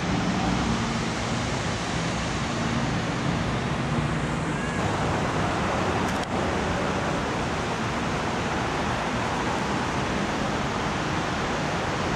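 Steady rushing noise of a lagoon waterfall mixed with street traffic, with a brief click about six seconds in.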